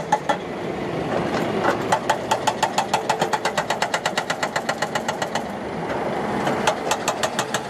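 Excavator-mounted hydraulic breaker hammering rock, with rapid even blows about nine a second over the excavator's running engine. The hammering pauses for about a second around five and a half seconds in, then starts again.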